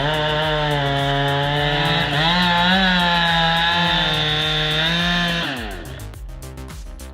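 Chainsaw running at full throttle, its pitch wavering a little as it works through the cut, then dropping away as the throttle is released about five and a half seconds in. Background music plays underneath.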